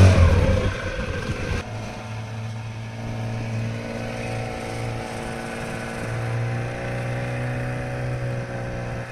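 Motorboat engine running at a steady pace, a constant hum that changes abruptly about a second and a half in.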